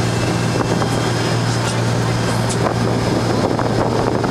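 Motorboat engine running steadily with a constant low hum, with wind buffeting the microphone.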